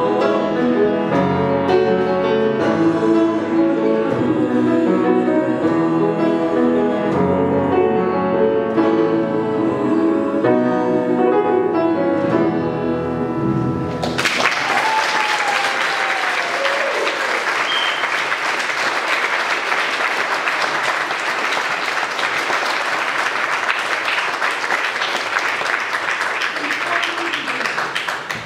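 Piano and guitar playing the closing bars of a song, stopping about fourteen seconds in, followed by an audience applauding steadily for the rest of the time.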